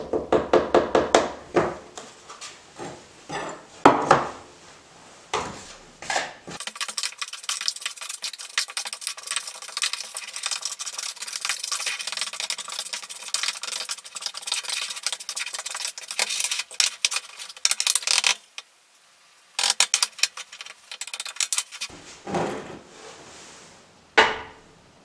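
A spoon stirring and scraping a powder mix of ammonium chloride and mineral powder in a plastic tub: a long run of quick gritty scrapes with a short pause partway through. First come scattered knocks and rattles as the powder is tipped from one plastic tub into the other. Near the end a glass dish is set down on a hot plate with a sharp knock.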